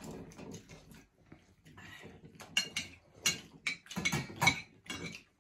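Close-up sounds of people eating: chewing, lip smacks and sips of soup from a bowl, with light taps of a spoon on a plate. The sounds grow louder and come thicker about halfway through.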